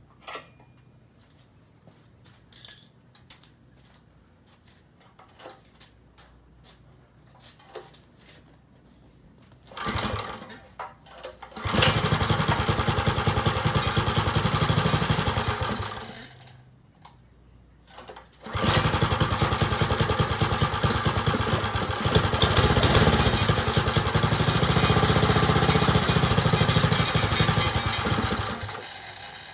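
Tillotson 9 hp single-cylinder engine on a Sears Roper mini bike at its first start after a rebuild. After some light clicks and a first try about ten seconds in, it catches and runs for about four seconds, then stops. It is started again and runs for about ten seconds before dying away near the end.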